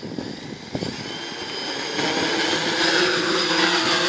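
Eight-rotor multirotor drone's electric motors and propellers whining, getting louder and rising in pitch about two seconds in as it lifts off carrying a roughly 900-gram camera.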